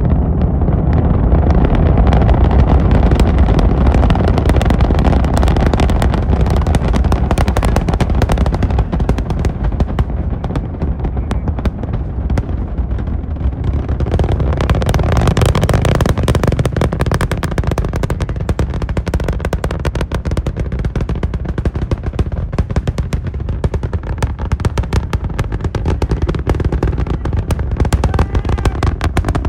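SpaceX Starship's Super Heavy booster and its 33 Raptor engines during ascent: a loud, deep rumble laced with a dense, rapid crackle that goes on without a break, easing slightly past the middle.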